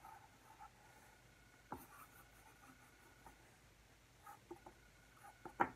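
Faint scratching of a wooden pencil drawing on lined notebook paper, with a few soft clicks, the sharpest about two seconds in and just before the end.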